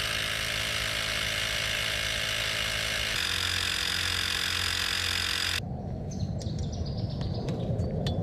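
A small motor running steadily, shifting pitch about three seconds in and cutting off suddenly after five and a half seconds, followed by outdoor background with birds chirping.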